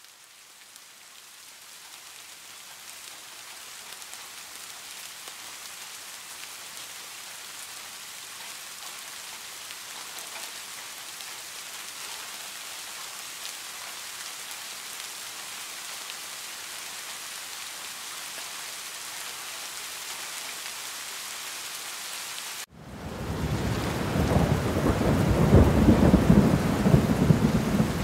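Steady rain falling on a wet hard surface, fading in over the first few seconds. About 23 seconds in it cuts abruptly to heavier rain with a loud, deep rumble of thunder.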